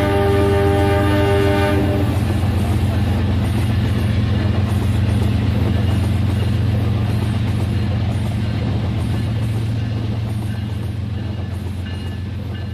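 Rail King toy train running on its track. Its electronic horn sound plays for about the first two seconds, then the motor and wheels run on with a steady low drone and rattle.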